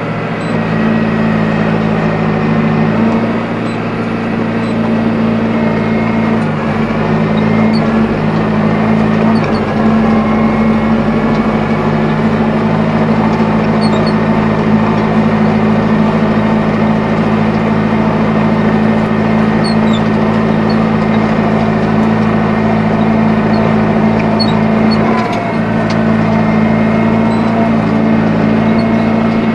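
Tractor engine running steadily under load while pulling a PTO-driven four-rotor rotary hay rake (Kuhn GA 13131) across the field. The engine note dips briefly a few seconds before the end.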